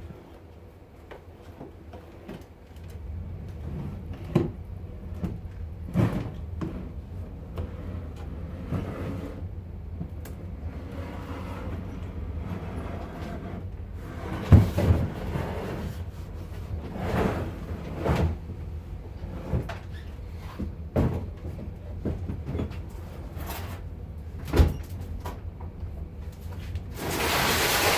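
A heavy bin of pinball parts, about 100 pounds, being carried down a flight of stairs: irregular thumps and knocks as it bumps down and footsteps land step by step, over a steady low rumble. There are heavy thuds about fourteen and a half and twenty-four seconds in, and a longer scraping rustle near the end.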